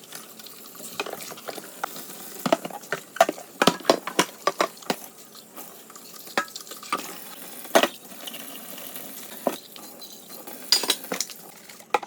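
Dishes and cutlery clinking and knocking together as they are washed, with many irregular sharp clinks over a steady hiss.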